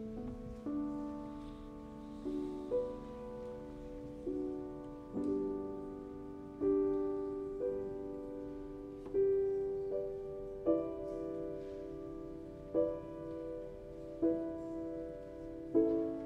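Slow, gentle instrumental music on piano: notes and chords struck about once a second, each one fading away.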